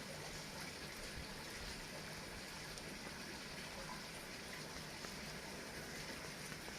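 Heavy rain falling steadily: an even hiss with scattered small drop ticks.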